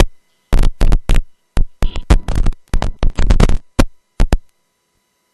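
Helicopter crew intercom audio cutting in and out: about a dozen short, irregular bursts of cabin and rotor noise, each chopped off to dead silence, with silence before and after the burst sequence.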